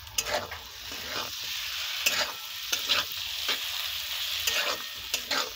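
Spices, onion and freshly added chopped tomato frying in oil in a karai, a steady sizzle, with a spatula scraping and stirring the pan in about a dozen short, irregular strokes.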